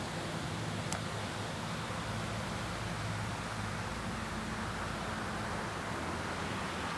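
Steady outdoor background noise with a faint low hum, and a single light click about a second in.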